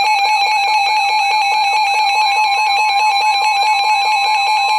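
Weather radio alert alarm for a severe thunderstorm warning: a loud, steady electronic tone with a fast repeating pulse, about four beats a second. About two seconds in, a second steady, slightly higher tone joins it, the 1050 Hz NOAA warning alarm tone.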